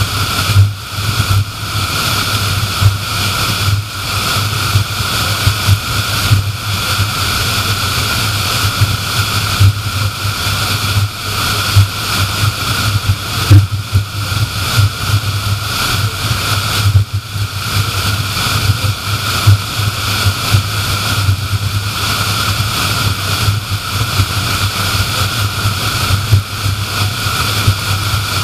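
Car cruising at highway speed: a steady rush of tyre and road noise over a low drone.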